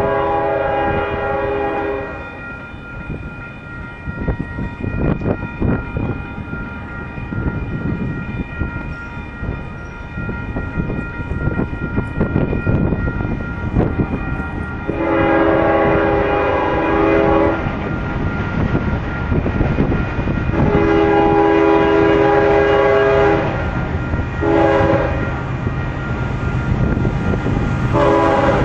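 Freight locomotive air horn blowing the grade-crossing signal: long, long, short, and the start of another long blast near the end, with a blast fading out about two seconds in. A continuous low train rumble runs underneath.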